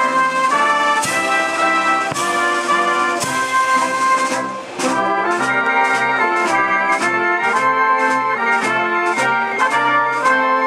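Military concert band with trumpets and trombones to the fore, playing held brass chords with drum strokes. Just under halfway through, the music drops briefly, then moves into a quicker passage of short, evenly repeated notes.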